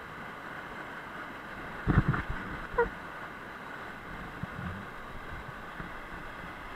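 Steady rushing of a large waterfall, with a few sharp knocks and thumps about two seconds in and another just after, the loudest sounds.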